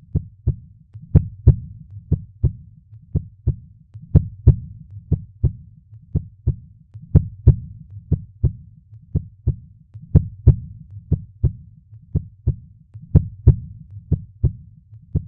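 Heartbeat: the first and second heart sounds ("lub-dub") come in close pairs at a steady rate of about one pair a second.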